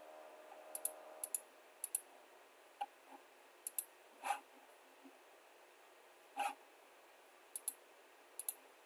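Computer mouse clicking while a software menu tree is browsed: scattered single clicks and quick pairs, over a faint steady hiss. Two slightly longer, louder short noises come about halfway through.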